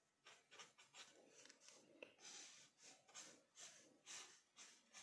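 Faint strokes of a pen on paper as words are written and underlined: quick short strokes at first, then longer strokes about every half second from about two seconds in.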